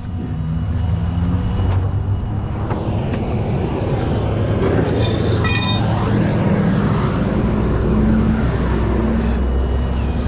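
Truck engine running steadily at a low idle, with rushing noise in the middle and a brief high squeak about five seconds in.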